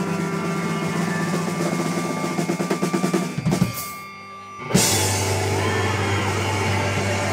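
Live rock band with electric guitar, bass and drums playing: drum hits quicken into a drum roll over held guitar notes, the band cuts out for about a second midway, then comes back in together with a cymbal crash and a low held bass note.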